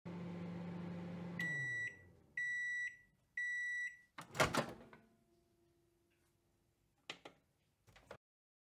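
Microwave oven running with a steady hum that winds down, then three high end-of-cycle beeps about a second apart, followed by a loud clunk as the door pops open. A couple of soft clicks come near the end.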